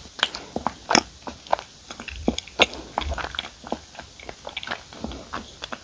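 Close-up chewing of a soft, chewy glutinous rice cake (chapssaltteok) filled with cream cheese. The mouth makes irregular clicks and smacks, several a second.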